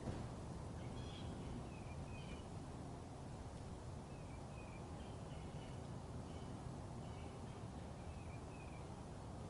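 Birds chirping outdoors: short, high chirps, often in pairs, repeated every second or so over a faint steady low background.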